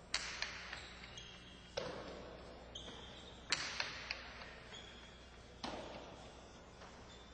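Hard jai-alai ball (pelota) cracking against the fronton walls during a rally, four loud strikes about every two seconds, each ringing out in the hall's echo with smaller ticks of bounces after it. Short high squeaks come between the strikes.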